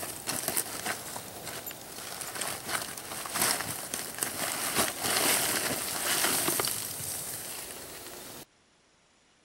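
Gloved hands crunching and scraping through charcoal and ash, with crinkling of the turkey's wrapping as it is dug out of the coals. The sound cuts off suddenly about eight and a half seconds in.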